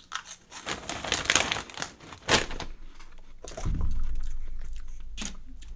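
Crisp chips crunching as they are bitten and chewed, with the crinkle of the plastic chip bag; a low rumble of handling noise comes in about three and a half seconds in.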